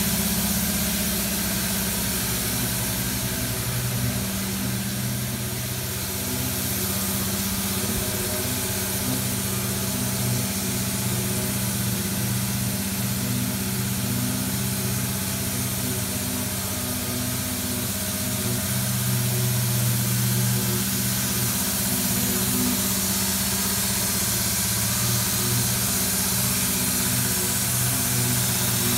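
An engine idling with a steady, even low hum.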